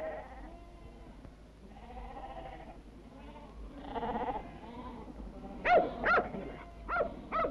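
Sheep bleating, three long wavering bleats, then a dog barking four times in quick succession near the end.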